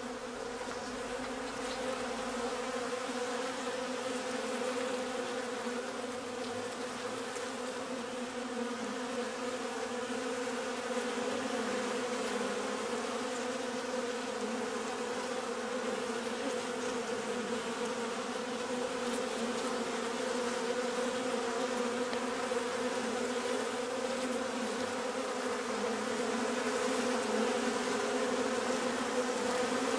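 Honeybees buzzing on the comb: a steady, many-voiced hum.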